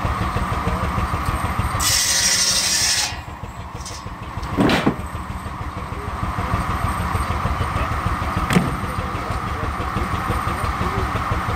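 Steam traction engine running with the sawmill: a steady mechanical rumble, a burst of steam hissing about two seconds in that lasts about a second, and two short knocks later on.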